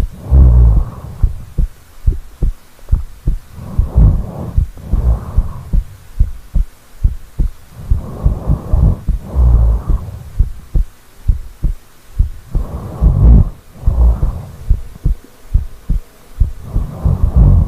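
A sleeping person's heartbeat thumping steadily, picked up close to the body. About every four seconds comes a slow snoring breath, drawn in and let out, with a low rumble.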